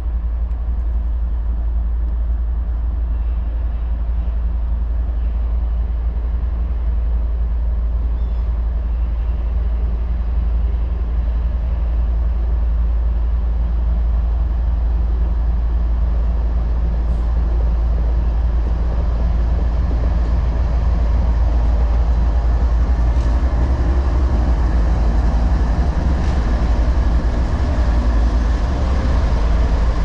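Norfolk Southern freight train's diesel locomotives approaching on the main line, a steady engine rumble that grows gradually louder as the lead units come alongside near the end.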